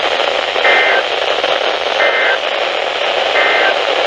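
Weather radio receiver hissing with static, with three short, identical data bursts about 1.3 seconds apart: the EAS SAME digital code, whose bursts this short mark the end-of-message (EOM) signal that closes an alert.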